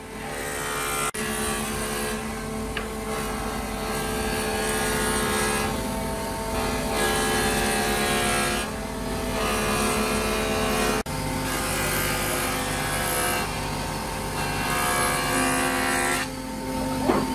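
Woodworking planer running with a steady machine drone, shaving a thick solid-wood slab as it is fed through. The cutting noise swells and eases in stretches of a couple of seconds, and the sound drops out sharply twice, about a second in and again about eleven seconds in.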